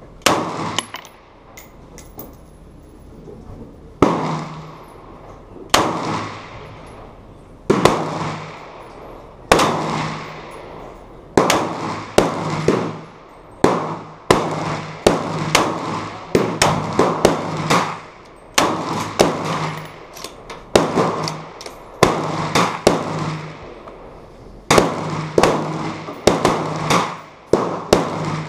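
Ruger Mini-14 semi-automatic rifle firing a long string of single shots, about every two seconds at first and then faster, each sharp report ringing on under the covered range's roof. Fainter sharp cracks fall between the main shots.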